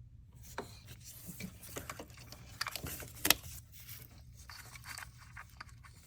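Tools and engine-bay parts being handled: irregular rubbing, scraping and small clicks, with one sharp click a little over three seconds in.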